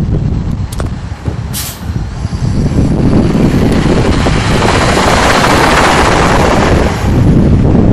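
Heard from on board a NABI 40-SFW transit bus: a short, sharp hiss of air from the air-brake system about a second and a half in, over the Caterpillar C13 straight-six diesel running. From about three seconds in, the engine sound builds into a loud, broad rush as the bus pulls away from the stop, then eases near the end.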